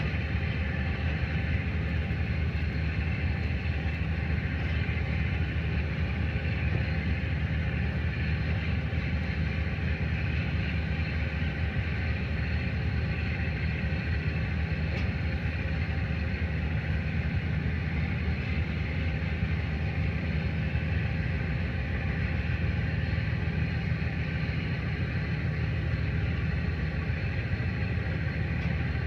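Tugboat's diesel engine running steadily, a constant low rumble.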